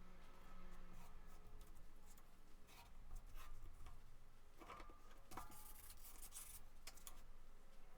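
Paper being handled and worked by hand: soft rustles, small clicks and taps, with a longer scraping rub of paper about two-thirds of the way through.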